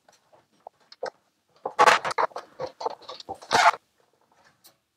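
Plastic case of a TRS-80 Color Computer 2 being handled and turned over on a desk: a few small clicks, then scraping and knocks in two clusters, about two seconds in and again about three and a half seconds in.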